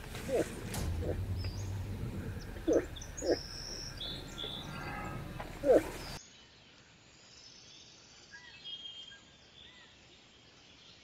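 Moose calling: about five short calls over the first six seconds, with small birds chirping behind them. After an abrupt cut about six seconds in, only faint bird chirps remain.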